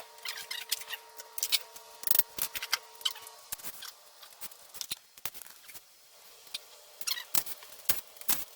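Irregular light clicks, taps and scrapes of small hard objects being handled, with a faint steady hum that stops about three seconds in.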